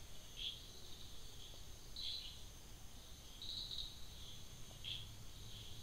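Faint background chirping: short high chirps about every one to one and a half seconds, over a thin steady high tone.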